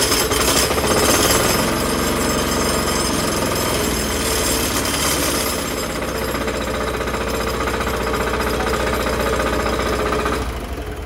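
Yanmar single-cylinder air-cooled diesel engine on a concrete cutter running steadily during an engine test just after being started, then shut off and dying away near the end.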